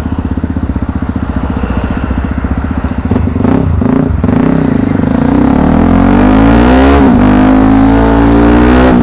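Yamaha WR155R's single-cylinder engine, heard through an action camera's built-in microphone: a few seconds of steady low-rev running, then the engine revs up as the bike accelerates, its pitch climbing, dropping sharply at a gear change about seven seconds in, and climbing again.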